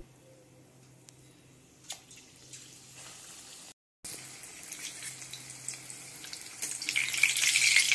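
Batter-coated aloo chop (besan-dipped potato balls) deep-frying in hot oil: after a quiet first half, a crackling sizzle starts about halfway through and grows louder near the end.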